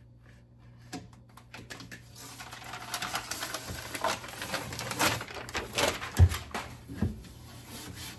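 Plastic refrigerator liner sheet crinkling and rustling as it is handled and laid onto a fridge shelf. The rustling starts about two seconds in, with two dull knocks near the end.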